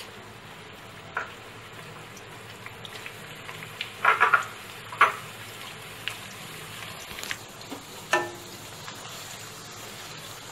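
Sliced onions sizzling steadily in hot oil in a wok, frying toward a light pink. A few sharp knocks and clatters, the loudest about four and five seconds in, as the onions are handled and stirred with a wooden spatula.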